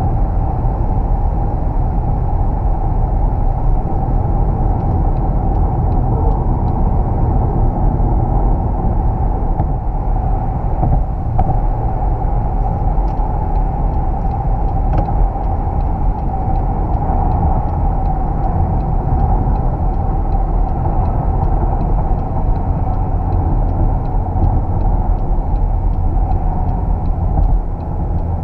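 Steady driving noise inside the cabin of an Opel Insignia Country Tourer cruising at motorway speed: a low, even rumble of road, tyres and drivetrain.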